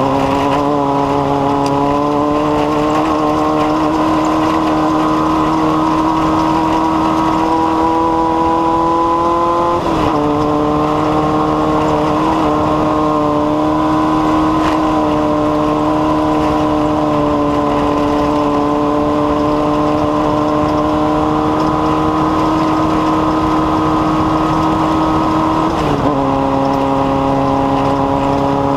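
A loud, steady engine-like drone holding one pitch with strong overtones. The pitch creeps slowly upward and drops a little twice, about ten seconds in and again near the end.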